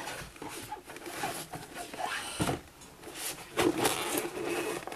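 Rustling, scraping and a few light knocks of a cardboard product box and its contents being handled, the loudest knock about two and a half seconds in.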